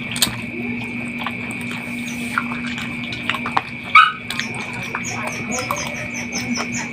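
Close-up eating sounds of a person eating chicken and rice with his fingers: wet chewing and lip smacks, with the loudest smack about four seconds in and quick small wet ticks near the end. A steady faint high tone hums underneath.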